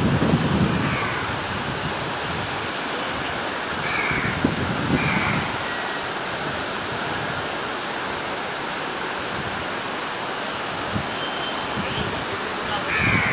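Steady rushing noise of heavy rain and floodwater, with crows cawing a few times: at about four and five seconds in and again near the end. A brief low rumble sits under the first second.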